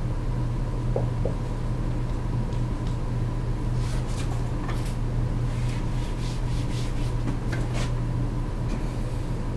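Short scratchy writing strokes, coming in clusters mostly in the middle and later part, over a steady low hum.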